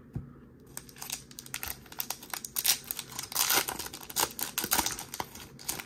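Silver foil wrapper of a Topps 2022 Series 2 baseball card pack crinkling and tearing as it is opened by hand. A dense run of sharp crackles starts about a second in and is loudest around the middle.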